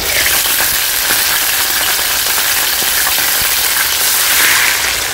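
Blended fresh tomato hitting a hot oiled pan and sizzling loudly and steadily, a dense crackle of liquid frying.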